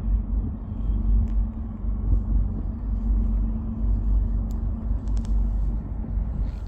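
A low, uneven rumble with a steady hum running through it.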